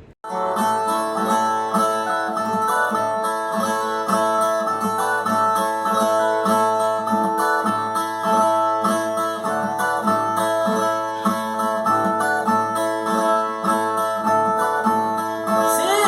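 Viola (Brazilian steel-string guitar of the repente tradition) plucked in an instrumental introduction, a repeating phrase of picked notes over ringing open strings.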